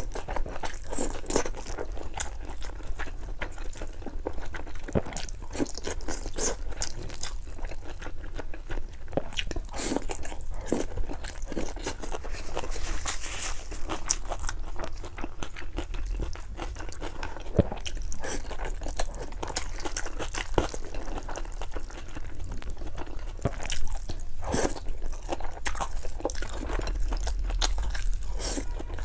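A person chewing and biting spicy noodles, with dense, irregular wet clicks and crunchy mouth sounds throughout.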